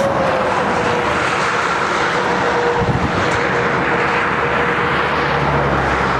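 Loud, steady engine and road noise from heavy vehicles, with a faint drone that holds throughout and a low hum joining near the end.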